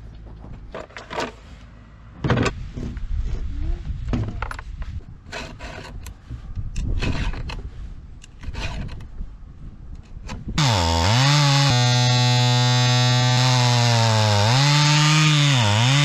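Short scraping strokes of a round file sharpening a Stihl chainsaw's chain. About ten and a half seconds in, the Stihl two-stroke chainsaw starts running loud at high revs, cutting a log, and its pitch dips a few times as the chain bites into the wood.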